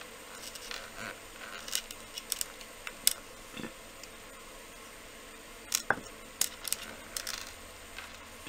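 Light scattered taps, clicks and soft rustles of hands patting and handling a sheet of polymer clay on a ceramic tile, a small cluster of them about six seconds in.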